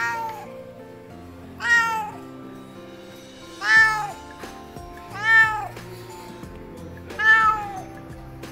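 A cat meowing five times, each meow rising and then falling in pitch, spaced about one and a half to two seconds apart.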